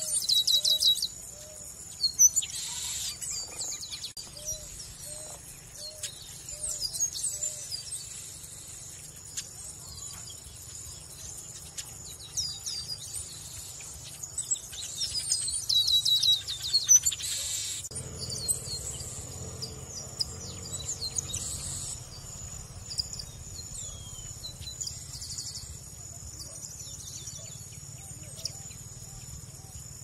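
Chestnut-capped blackbird (Garibaldi, Chrysomus ruficapillus) singing: loud bouts of quick, high, gliding notes near the start, around 2–3 s and again around 15–17 s, with scattered shorter calls between. A steady high buzz, as of insects, runs underneath, and low repeated notes sound about twice a second in the first several seconds.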